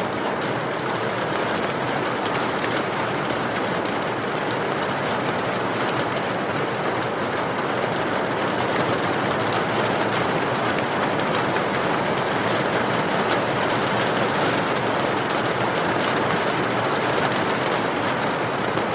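Steady rain falling together with the crackle of a burning wood fire. Many small sharp ticks and pops sit over a constant hiss.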